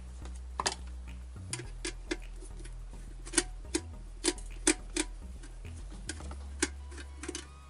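About a dozen irregular sharp clicks and light taps over a low steady hum, from tools and parts being handled on a workbench during a repair.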